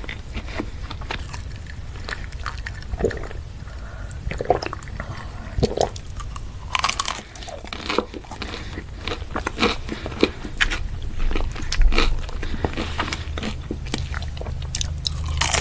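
Close-up eating sounds: a person biting into and chewing crunchy food, with irregular crunches throughout over a steady low hum.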